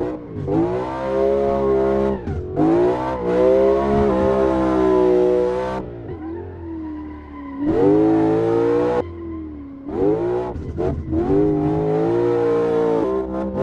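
BMW M3 E92's V8 engine through a titanium exhaust, revved hard in long pulls that fall away twice when the throttle is lifted. After the second lift-off there is a quick run of exhaust crackles before the engine pulls hard again.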